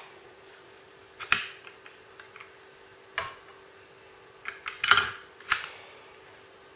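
Sharp plastic clicks and knocks of a cuvette being taken out of and set into a Go Direct colorimeter and its lid shut, with lighter taps between. The loudest is a quick cluster of clicks about five seconds in.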